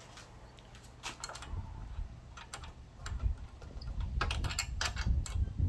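Light metal clicks and taps from small parts and tools being handled while a solenoid coil is fitted onto an espresso machine's group valve. The clicks are irregular and come closer together near the end, over a low handling rumble that grows from about three seconds in.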